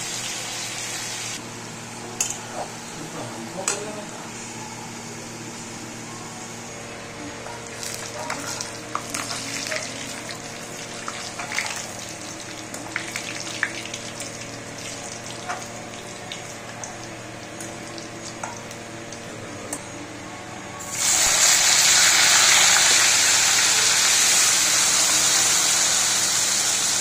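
Kheksa (spiny gourd) slices frying in oil in a kadai: a low sizzle with clinks and scrapes of a slotted spoon against the pan and a steel bowl. About two-thirds of the way through the sizzle jumps suddenly much louder and stays loud as a fresh batch of slices goes into the hot oil.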